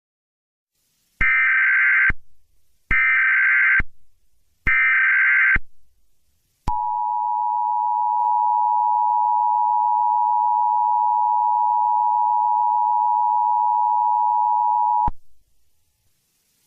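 Emergency Alert System SAME header: three short bursts of data tones, then the steady two-tone EAS attention signal for about eight seconds, which cuts off abruptly.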